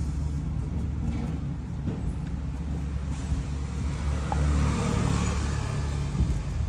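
Small motorcycle engine running with a steady low rumble, swelling briefly about four to five seconds in.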